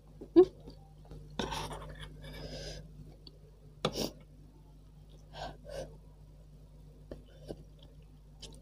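Metal spoon and fork clinking and scraping against a stainless steel pot of bakso aci in broth as the food is cut and scooped, in a series of separate short sounds, the loudest about half a second in.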